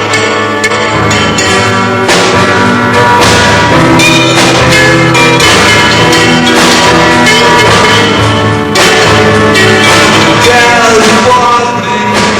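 A rock band playing a song live at full volume, with a steady drum beat under pitched instruments.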